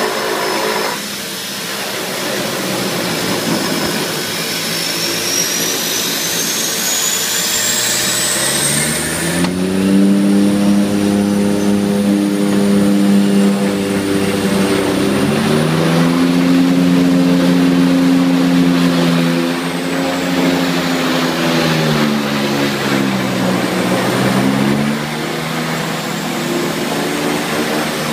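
Seaplane's turboprop engines heard from inside the cockpit as the pilot brings up power for takeoff. A high turbine whine rises steadily in pitch, then gives way about a third of the way in to a strong propeller drone that shifts in pitch a few times as the aircraft climbs.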